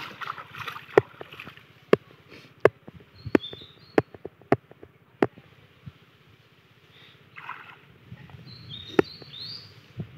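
Water splashing and sloshing as hands churn a shallow muddy pond, fading in the first moment, then a scatter of sharp clicks that are the loudest sounds, a brief splash about seven seconds in, and two short high chirps.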